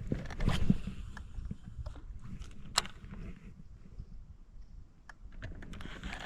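Handling noise of fishing tackle in a boat: scattered clicks and knocks, with a louder knock about half a second in and a sharp click near three seconds, over a low steady rumble.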